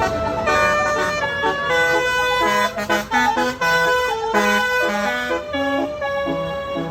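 Electric basuri musical horns playing a tune: a quick run of held horn notes that change pitch every fraction of a second.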